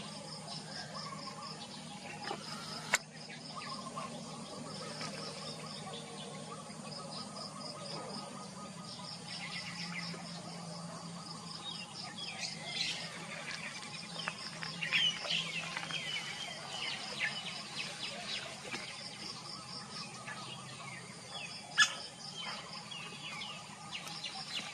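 Laced woodpeckers calling among other birds: repeated fast pulsing trills and a busy cluster of chirps and sliding notes near the middle. Two sharp, loud clicks stand out, one about three seconds in and one near the end.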